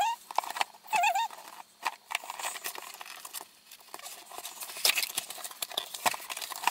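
A cardboard beauty subscription box and its paper packing being opened and handled by hand: irregular rustling, crinkling and light taps and clicks. There are two brief wavering pitched sounds about a second apart at the start.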